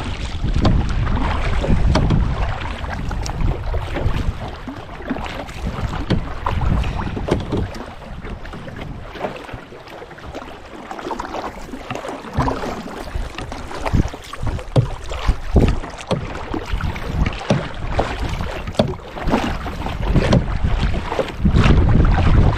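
Canoe paddle strokes on a lake: irregular splashes and drips of water against the paddle and hull. Wind buffets the microphone with a low rumble at the start and again near the end.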